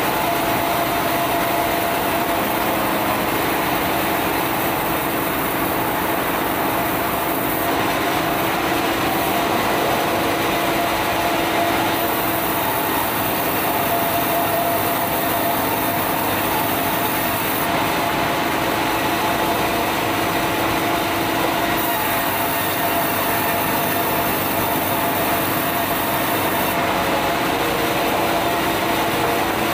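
Sawmill band saw running steadily and ripping red meranti planks: a constant machine hum under the hiss of the blade in the wood, with the hiss changing in level every few seconds.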